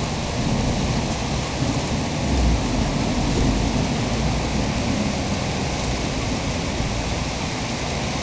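Approaching thunderstorm: a steady rushing noise, with a deeper low rumble about two and a half seconds in.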